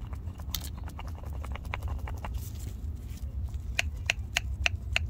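Worn front sway bar end link on a Tesla Model S, knocking in a quick irregular run of light knocks, about four or five a second, over a low steady hum. The knocking is the sign of a worn-out link and is the cause of the knock heard over bumps at low speed.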